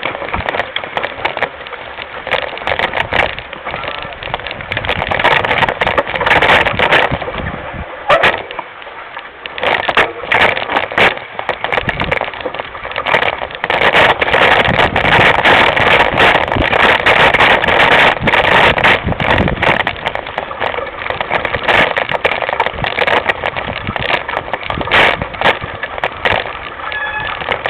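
Mountain bike riding a rough dirt trail, heard from a camera mounted on the bike: continuous rattling and clattering from the bike and mount, with many irregular sharp knocks as it hits bumps.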